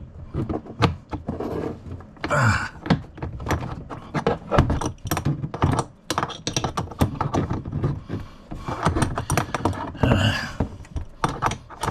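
Hand work on a toilet's bidet water connection: a run of irregular clicks, taps and knocks of fittings and tools, with a few thunks and brief rustling.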